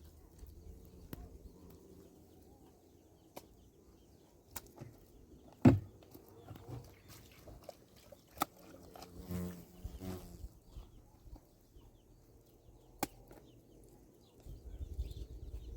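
Scattered knocks and clicks, the loudest about six seconds in, with a short pitched call around nine to ten seconds in.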